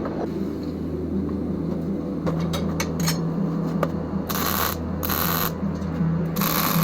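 Small metallic clicks and taps, then a few separate scraping strokes of about half a second each, like hand abrasion of steel, over a steady low hum.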